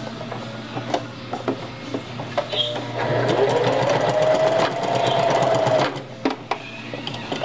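Singer Heavy Duty sewing machine stitching in one short run: the motor whines up in pitch about three seconds in, runs for about three seconds, then stops suddenly. Scattered light clicks come before and after the run.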